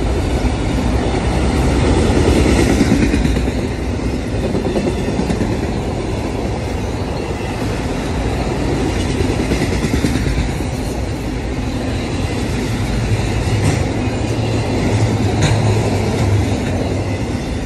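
Autorack freight cars rolling past at trackside: a steady rumble of steel wheels on the rails.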